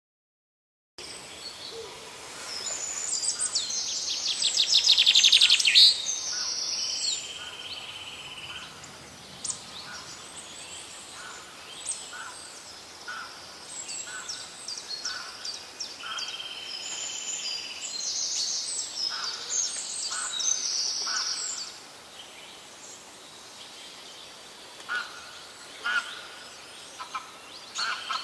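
Several birds singing, starting about a second in, with fast trilling phrases loudest around five seconds in and short repeated chirps and buzzy notes through the rest.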